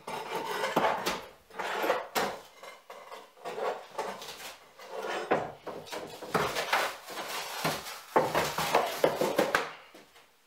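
Old cardboard being pulled up and torn off a wooden plank floor: uneven bursts of ripping, rustling and scraping with small knocks, dying away near the end.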